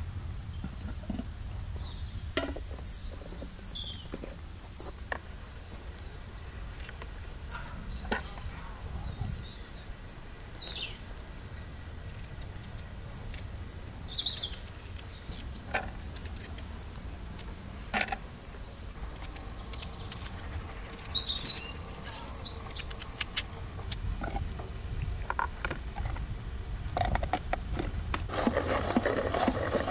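Birds calling in short, high notes at intervals, with scattered light clicks and knocks.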